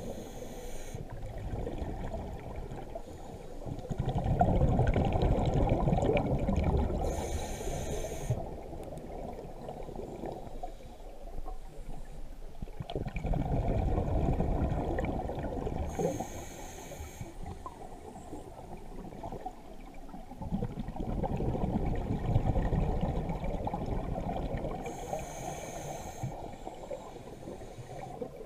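A scuba diver breathing through a regulator, recorded underwater: about three slow breaths, each a loud burst of exhaled bubbles rumbling for a few seconds, then a short hiss as the regulator delivers air on the inhale.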